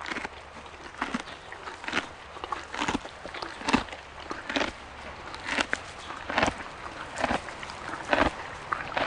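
Horse hooves walking on hard ground, a steady clop about once a second.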